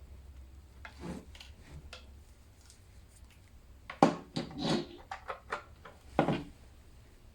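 Hands handling a hard-drive docking station and its cables on a table: scattered knocks and clicks with a short bit of rubbing. The sharpest knock comes about four seconds in, followed by a quick run of small clicks and another knock near the end.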